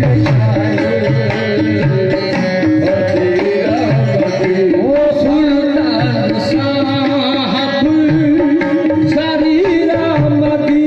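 Qawwali music: harmonium holding a steady note under a lead voice's wavering, ornamented line, with tabla-style hand drums keeping the rhythm.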